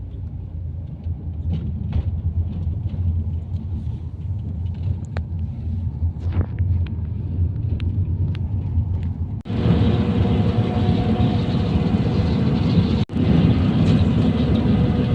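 Low, steady rumble of a moving road vehicle. About two-thirds of the way in it changes abruptly to louder, hissier ride noise with a faint steady whine.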